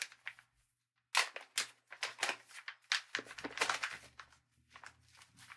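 Cigar packaging being handled as cigars are pulled from their box: a run of short crinkles, crackles and clicks starting about a second in.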